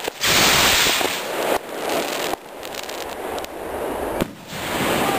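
Black-powder skyrocket lifting off: a sudden loud whoosh of its motor just after the start, loudest for about a second, then a rushing hiss that eases as it climbs.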